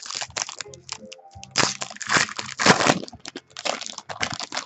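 Foil wrapper of a trading-card pack torn open and crinkled by hand: a dense run of sharp crackles, loudest in the middle.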